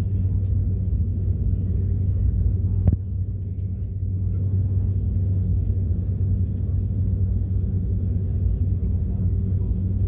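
Steady low drone and rumble inside an airliner cabin as the jet taxis, with a single short click about three seconds in.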